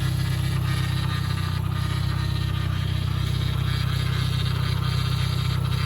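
Freshly rebuilt Toyota 22RE 2.4-litre four-cylinder engine idling steadily on its first runs, an even low hum.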